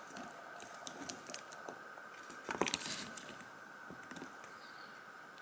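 Small, faint clicks and taps of tiny parts being handled: hot-swap sockets and pins being pushed into place on a breadboard. The clicks come irregularly, with a few sharper ones near the middle.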